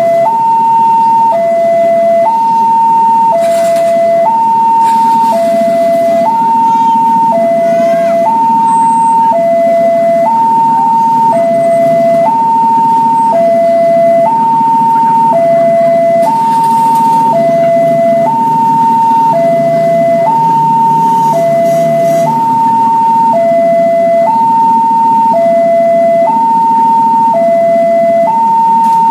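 Electronic railway level-crossing alarm sounding its two-tone warning, a higher and a lower tone alternating about a second each, while the barrier is down. It is the signal that a KRL commuter train is approaching the crossing.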